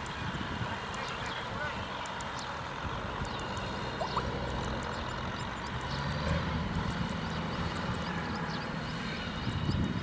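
Kubota DC105X rice combine harvester's diesel engine running steadily as the machine moves across the field, a low hum that grows a little louder past the middle. Many short high chirps sound over it.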